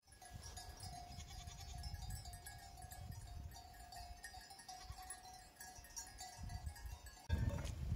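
A grazing flock of sheep and goats bleating faintly. Near the end a sudden, louder noisy sound cuts in.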